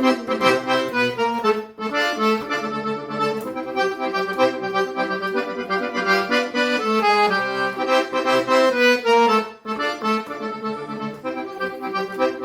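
Accordion playing an instrumental melody over a steady rhythmic backing, with two brief pauses in the phrasing.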